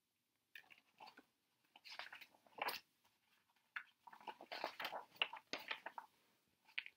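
Paper rustling and crinkling in irregular bursts as the pages of a picture book are handled and turned.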